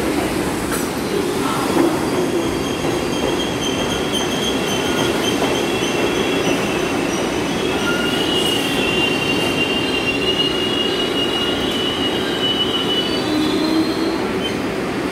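R62A subway train pulling into the station and running along the platform: a steady rumble of wheels on rail with a high-pitched squeal, strongest about halfway through.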